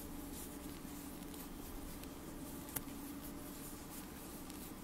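Faint rustling and scratching of acrylic-looking yarn being worked with a crochet hook, with a single sharper click just under three seconds in, over a steady low room hum.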